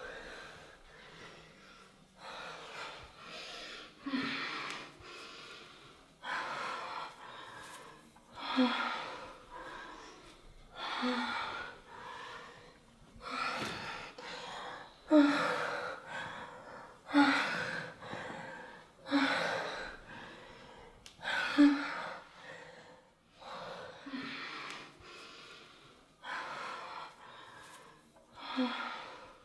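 A person breathing heavily in long, loud gasps, about one every two seconds, each breath opening with a brief catch of the voice.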